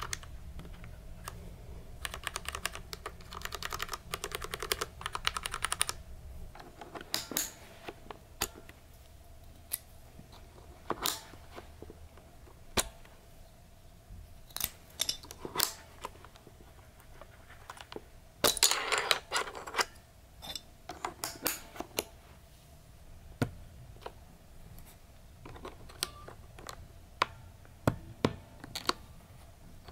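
Mechanical keyboard with red linear switches clacking under a hand's key presses. A rapid run of keystrokes starts about two seconds in, then single presses come scattered, with another quick flurry a little past halfway.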